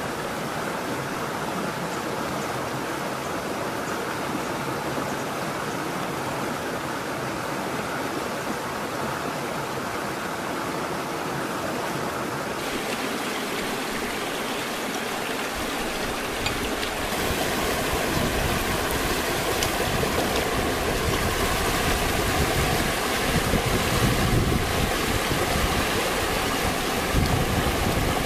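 Shallow rocky stream running, a steady rush of water that becomes louder and fuller about halfway through, with uneven splashing in the second half.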